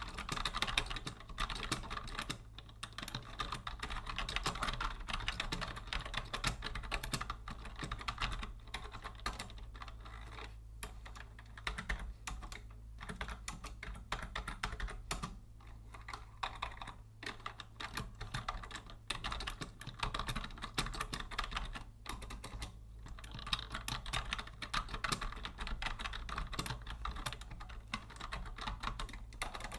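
Continuous fast typing on a vintage Logitech Deluxe 104 wired keyboard, a dense run of key clicks with a few short pauses, over a faint low hum.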